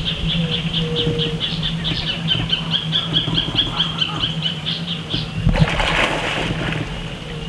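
Yacare caiman thrashing at the surface: a loud splash of churned water about five and a half seconds in, lasting around a second. Behind it, a steady, rapid high chirping runs at about five or six chirps a second.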